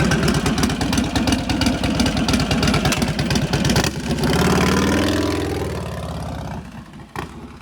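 Motorcycle engine running with a fast, even pulse, then a motorcycle riding off, its note falling and fading away over the last few seconds.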